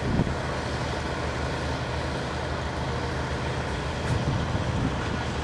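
Heavy diesel engines of the river pontoon ferry and the truck on it, running steadily with a low, even rumble.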